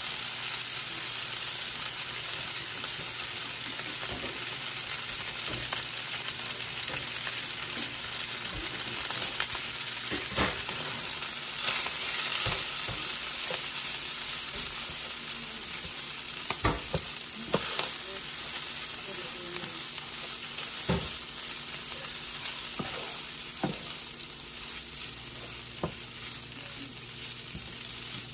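Ground chicken and rice sizzling in a hot ceramic-coated sauté pan, with a steady frying hiss, while a wooden spoon stirs and scrapes through it, knocking against the pan now and then.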